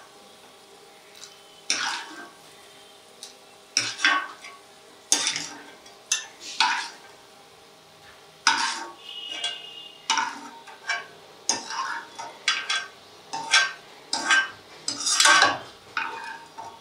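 Steel ladle scraping the bottom of a non-stick kadai and clinking against a small glass bowl as fried cashews and almonds are scooped out, about a dozen irregular scrapes and clinks.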